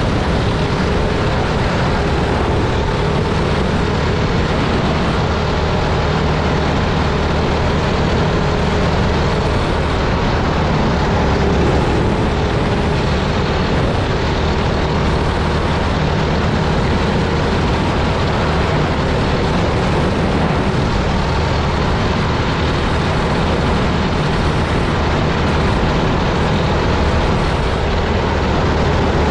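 Kids-class racing kart's small engine running steadily at speed, heard from on board the kart.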